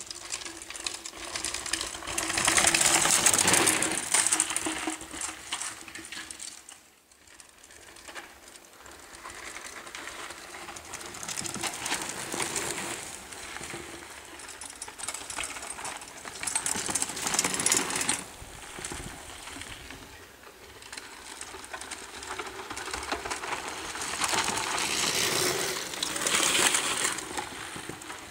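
Mountain bike ridden along a rough forest singletrack, heard from a camera carried on the ride: a rapid rattling clatter of the bike over roots and stones, with a rushing noise. It swells louder and eases several times as the trail changes.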